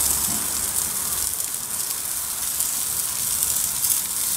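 Food sizzling as it cooks over heat, a steady hiss.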